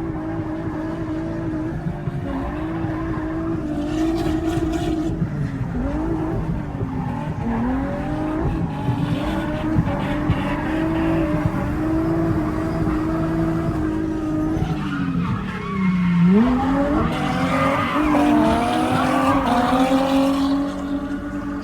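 Nissan 350Z drift car's V6 engine held at high revs with tyres squealing through a drift. The revs drop sharply and climb back a few times, most deeply about sixteen seconds in.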